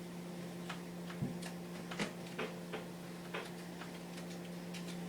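Scattered light clicks and taps, unevenly spaced, over a steady low electrical hum.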